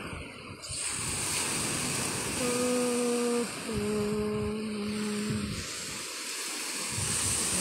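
Waves breaking and washing up on a pebble beach, with wind on the microphone. In the middle a person hums two long, steady notes, the second a little lower.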